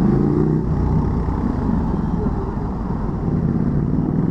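Motorcycle engine running steadily while riding, with road and wind noise underneath.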